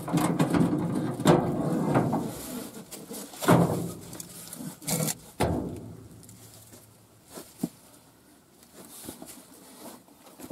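A steel exhaust muffler being worked off its mounting brackets and lifted out from under a generator's sheet-steel frame by hand: scraping against the frame for the first two seconds, a few sharp knocks over the next few seconds, then only faint clicks.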